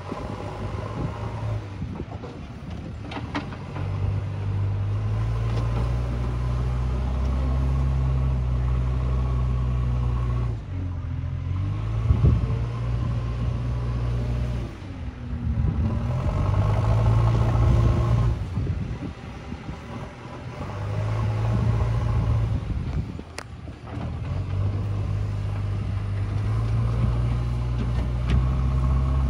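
JCB 3DX backhoe loader's four-cylinder diesel engine working, revving up and dropping back again several times.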